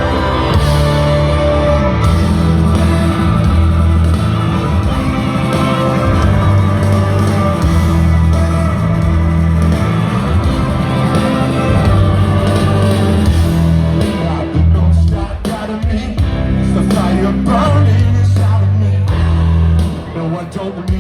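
Live rock band playing loud in a concert hall, with deep sustained bass notes that change every second or two and sharper strokes from about two-thirds of the way in, recorded on a phone in the crowd.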